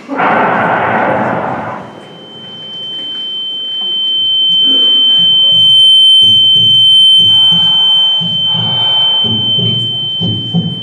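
Film soundtrack played through a hall's speakers: a loud rush of noise lasting under two seconds, then a steady high-pitched ringing tone held for about ten seconds, with low rhythmic thumping setting in beneath it partway through.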